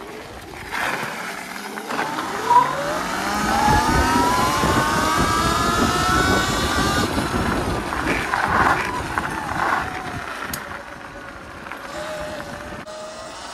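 Sur-Ron electric dirt bike's motor whining, rising steadily in pitch as it speeds up over several seconds, then easing down and settling. Under the whine runs a constant rush of tyre and wind noise.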